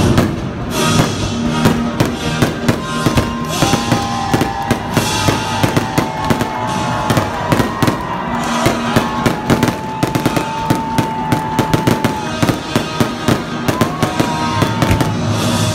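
Fireworks bursting and crackling in rapid succession over loud music.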